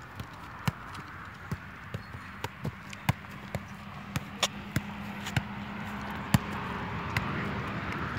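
Football being juggled: irregular thuds of foot and thigh on the ball, about two a second, over a steady rushing background.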